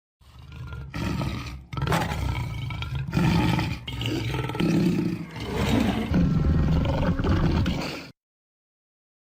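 Lion sound effect: a lion roaring and growling in a run of deep swells for about eight seconds, cutting off suddenly near the end.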